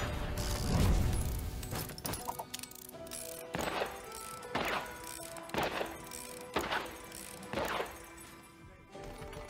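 Slot-game sound effects: a deep thud, then five sharp gunshot effects about a second apart as the cowboy shoots bullet wilds onto the reels, over western-style game music.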